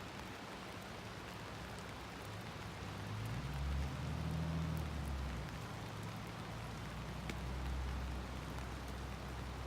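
Steady rain falling, heard as an even hiss, with a low rumble that swells about three seconds in and then carries on more quietly.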